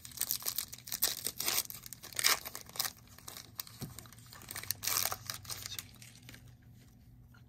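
A trading-card pack wrapper being torn open and crinkled by hand, in a run of irregular crackling rustles that thin out over the last couple of seconds.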